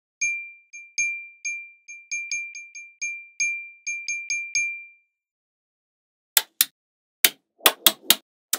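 About fifteen short ringing pings, all at one high pitch, unevenly spaced over the first five seconds. Then, after a pause, a quick run of sharp clicks like small magnetic balls snapping together.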